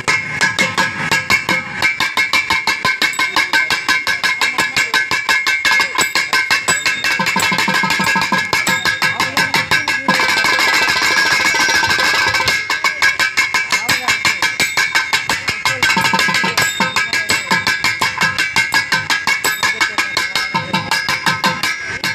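Carnatic percussion solo (thani avartanam): rapid, dense hand-drum strokes in fast rhythmic patterns over a steady drone. About ten seconds in, the strokes run together into a fast roll for a couple of seconds before the separate strokes return.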